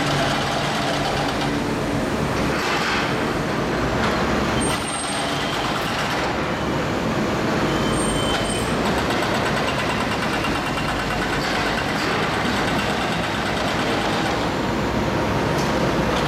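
Doosan DX480LC excavator with a telescopic dipper working, its diesel engine and machinery running steadily in a dense, even roar. A few brief faint high squeaks come through about five and eight seconds in.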